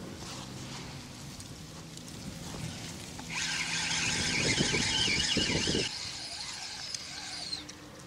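Fishing reel buzzing for about four seconds as line runs through it, starting about three seconds in, over a low steady hum.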